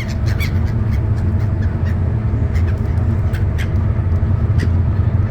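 Steady low engine drone with short, high squawks of seagulls over it.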